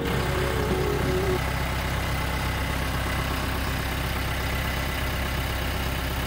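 Branson 7845C utility tractor's diesel engine idling steadily, with a thin steady whine above the engine note.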